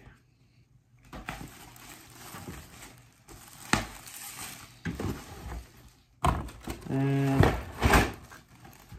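Clear plastic packaging rustling as corrugated-plastic goose silhouette decoys are unpacked and handled, with a few light knocks and a louder handling noise about six seconds in. A brief steady-pitched vocal sound, like a hum, comes near the end.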